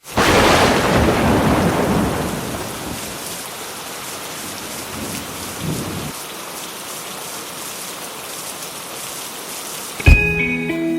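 A loud rumble of thunder over the first couple of seconds, fading into steady heavy rain. Guitar music comes in sharply near the end.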